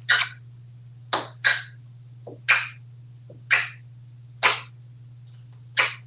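African grey parrot making a string of about seven short, sharp calls, roughly a second apart. A steady fan hum runs underneath.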